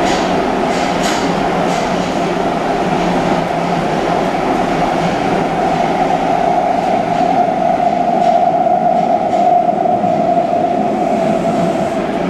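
Osaka Metro 400 series electric train (Hitachi hybrid SiC-VVVF drive) running at speed, heard inside the passenger car: a steady rumble and drone that swells slightly about two-thirds of the way through, with a few light clicks near the start and again around eight to nine seconds in.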